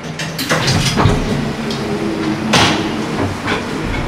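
Knocks and clunks from the open front gangway door of a coupled JR Shikoku 8000 series train as a worker steps through into the cab, the sharpest knock about two and a half seconds in, over a steady low hum.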